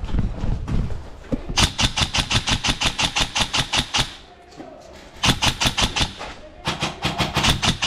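Airsoft rifle firing full-auto bursts, each a rapid, even string of sharp shots. A long burst starts about a second and a half in, and two shorter bursts follow in the second half.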